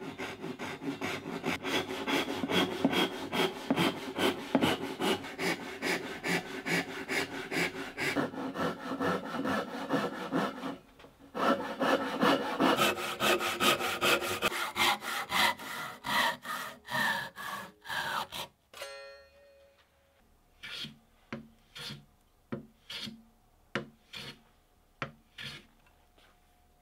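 Hand saw cutting a mahogany block with quick, even back-and-forth strokes, in two runs with a short pause about ten seconds in. In the second run the blade's ringing climbs in pitch. Sparser, quieter strokes follow near the end.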